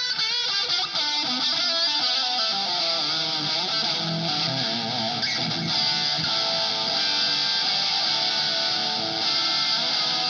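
Electric guitar with high-gain distortion, played through an amp-simulator chain: an 808 overdrive capture into a Victory MKX amp capture and a blended 4x12 cabinet IR, with digital delay and hall reverb. The notes ring and overlap.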